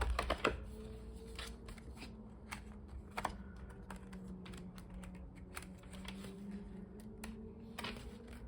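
Quick, irregular light clicks and taps of planner pages being handled and pressed onto the rings of a discbound planner, over a faint steady low hum.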